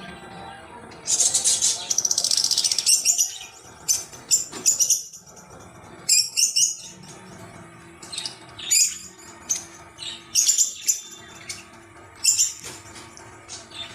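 Birds chirping in short, high-pitched bursts of rapid notes, repeating every second or two, the longest about a second in.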